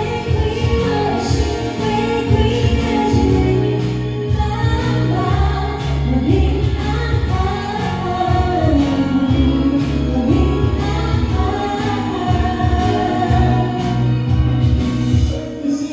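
A woman singing a song live into a handheld microphone over amplified instrumental accompaniment with a steady bass beat.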